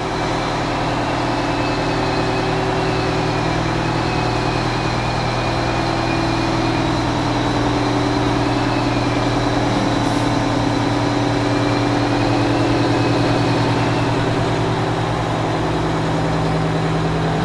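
Diesel engine of an Oshkosh HET M1070 8x8 heavy truck idling steadily.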